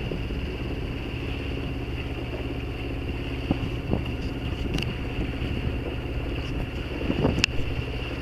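A sailboat's engine running steadily as the boat motors through a flat calm with no sails up. A few light clicks and knocks sound over it about halfway through and near the end.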